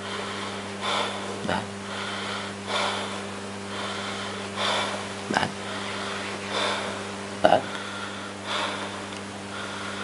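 A man breathing deliberately in and out through his open mouth for chest auscultation, each breath a short rush of air about every two seconds. A steady low hum runs underneath, and a few brief sharper sounds fall between the breaths.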